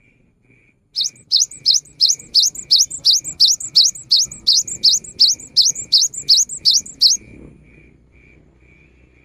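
Cinereous tit (gelatik batu) singing a fast run of sharp rising whistled notes, about three a second, starting about a second in and stopping after about six seconds. A fainter short note repeats steadily about twice a second underneath.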